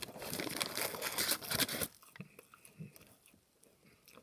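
Paper crinkling and rustling for about two seconds, as a takeout wrapper or bag is handled to get at a chicken nugget, then fainter small handling and chewing sounds.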